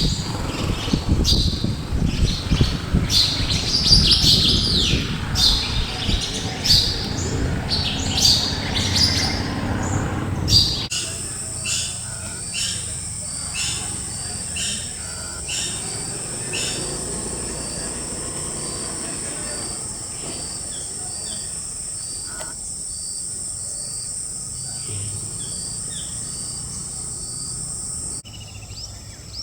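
Wild birds calling in short, sharp chirps, the later ones about once a second. For the first eleven seconds the calls sit over a loud low rumble that then cuts out. A steady high-pitched buzz carries on under the calls until near the end.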